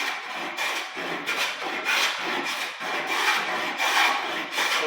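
Wooden-bodied long-sole hand plane pushed along a board in repeated strokes, its blade shaving the wood, flattening the board's face.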